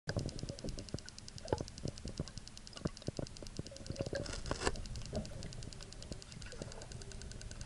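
Underwater recording in lake water: a low rumble with scattered sharp clicks and knocks, a denser patch of them about four and a half seconds in, over a faint rapid ticking.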